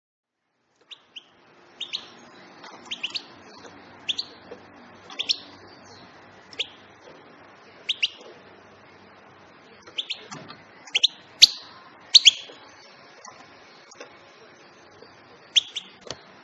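European goldfinch giving short, sharp chirping call notes, about a dozen at irregular intervals, several in quick pairs, loudest a little past the middle.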